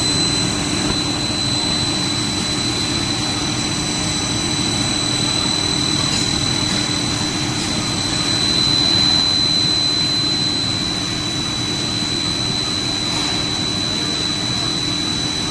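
Pea cracker food extruder running steadily: a constant machine drone with a steady high-pitched whine over it.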